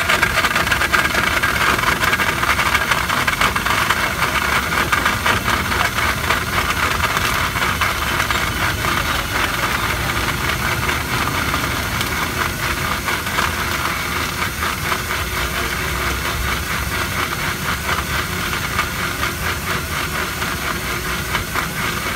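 Electric countertop blender motor running steadily at speed, blending a milk and dates shake in its jar.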